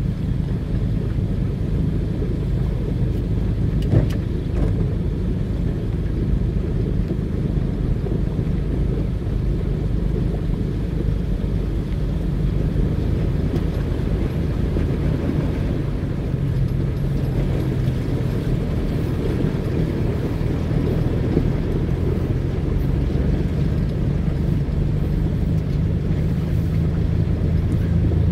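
A vehicle driving, heard from inside the cab: a steady low engine hum and road rumble, with a single knock about four seconds in.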